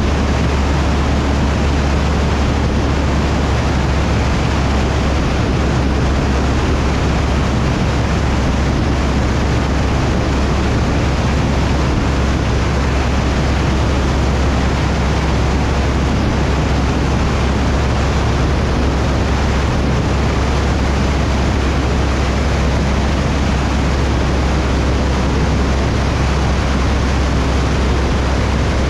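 Cessna 172's engine and propeller droning steadily in flight, with a loud, even rush of air over it.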